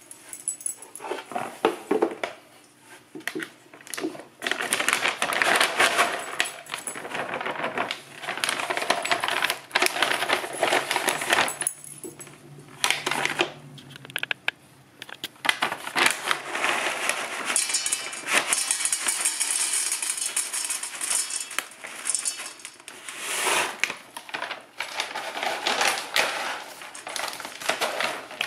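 Dry dog kibble rattling into a bowl and a Scottish terrier eating it, with many sharp clicks and rattles of kibble against the bowl.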